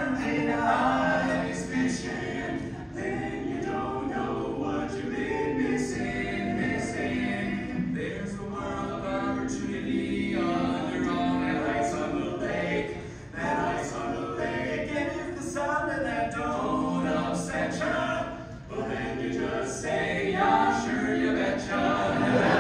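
Male barbershop quartet singing a cappella in close four-part harmony, the phrases broken by a couple of brief pauses.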